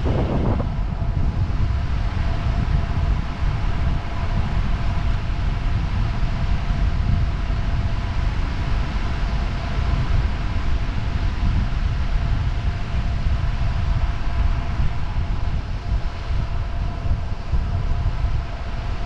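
Wind buffeting the microphone of a camera riding on a moving road bicycle, heard as a steady, heavy low rumble with road noise underneath and two faint steady tones.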